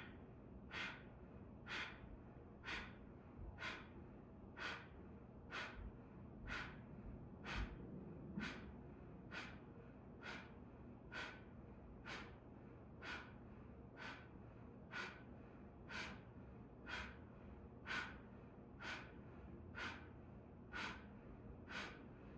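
Short, strong exhales out through a person's nose in qigong fire breathing (Qi Hua), about one a second at an even pace. Each exhale is a brief puff of air, faint overall.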